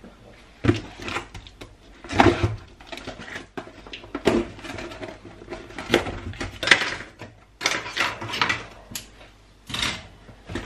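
A parcel being opened and unpacked by hand: packaging rustling and crinkling in a run of short bursts, with bumps as items are handled.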